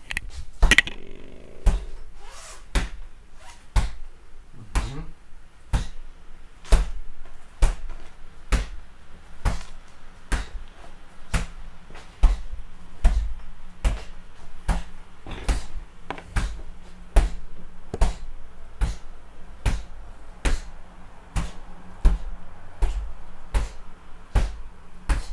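Gloved fists striking a heavy punching bag in a steady run of quick, light single punches, nearly two a second, each a short thud as the hand is snapped straight back.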